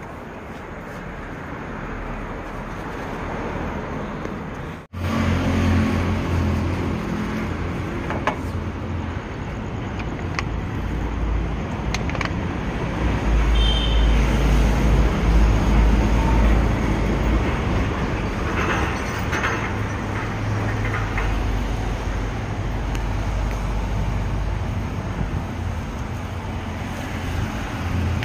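Quieter street noise at first. After a brief dropout about five seconds in, a louder steady roar with a low hum takes over: the gas burner under a large wok at a street food stall.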